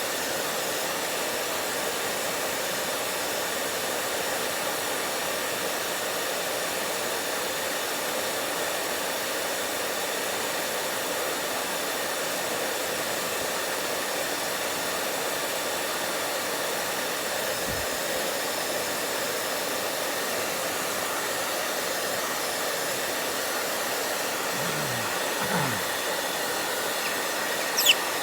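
Hand-held hair dryer blowing steadily, its motor whine and air rush unchanging. A few seconds before the end comes a short pitched sound, and just before the end a sharp click.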